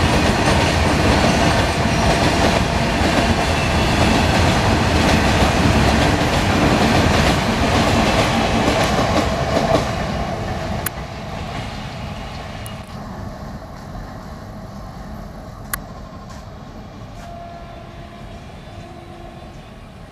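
A freight train's covered wagons rolling past, their wheels rumbling and clacking on the rails. The brake van passes about ten seconds in, and the rolling noise then fades steadily as the train draws away, with a few sharp clicks.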